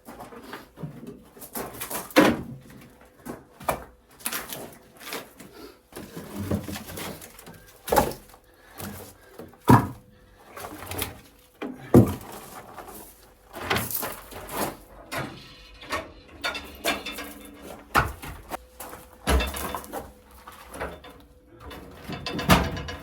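A run of sharp knocks and scrapes at irregular intervals, a loud one every second or two.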